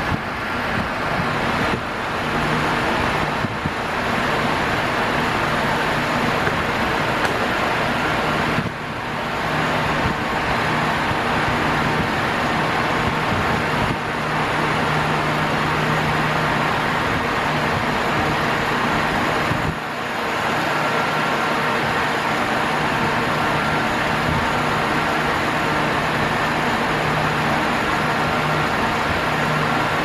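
Arno Ultra Silence Force Desmontável VD40 40 cm electric fan running at top speed. It gives a steady rush of air with a low motor hum underneath, dipping briefly twice.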